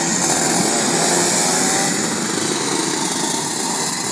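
Pack of Rotax two-stroke racing kart engines at high revs passing close by, loudest about a second in and then fading as the karts pull away.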